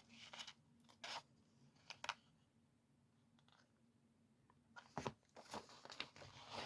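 Faint rustling and crinkling of magazine pages being handled and turned: a few brief rustles in the first two seconds, then a busier run of them from about five seconds in.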